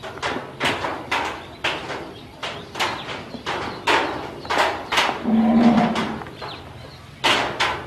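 Yellow ducklings peeping over and over, about two sharp calls a second. A little over five seconds in, a single low drawn-out call is the loudest sound.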